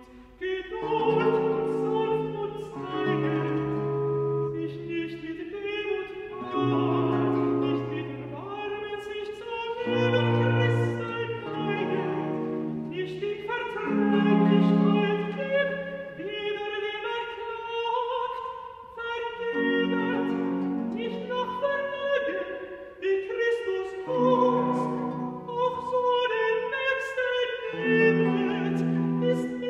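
Countertenor singing a baroque aria in long, sustained phrases, accompanied by a baroque instrumental ensemble with strings and held bass notes.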